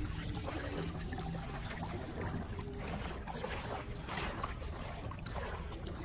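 Floodwater trickling and lapping, with scattered small splashes over a steady low rumble.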